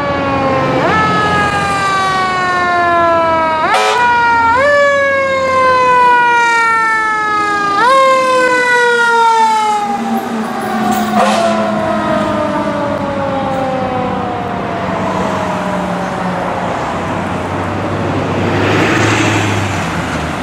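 Fire engine siren wailing: its pitch is pushed up sharply several times and slides slowly down after each, then winds down in one long falling glide. The truck's engine runs underneath, and there are two short sharp sounds about four and eleven seconds in.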